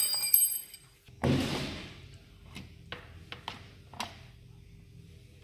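Workshop handling noises from fitting a motorcycle brake disc: a brief metallic clink at the start, a thud with a short rush about a second in, then a few scattered light clicks of metal parts, over a faint steady hum.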